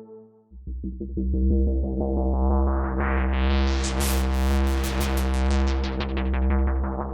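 Arturia Synthx V software synthesizer, an emulation of the Elka Synthex, playing a new patch: a deep held bass under a fast repeating sequenced pulse. The filter opens so that the tone grows steadily brighter to a peak around the middle, then closes again.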